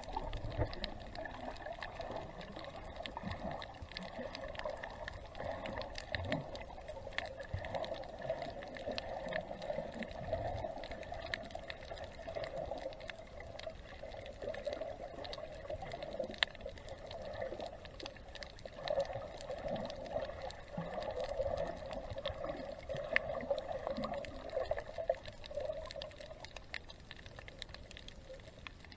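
Water sloshing and gurgling around a camera in the sea, with a wavering rush and scattered sharp clicks throughout.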